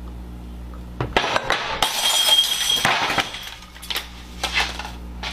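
A dish crashing and breaking, with a short ringing of glass or china about two seconds in, followed by a few lighter clinks of pieces.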